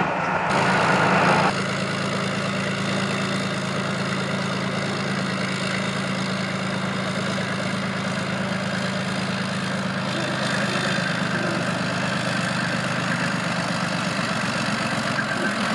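Engine idling steadily with a low hum. A louder, hissier sound over it stops about a second and a half in.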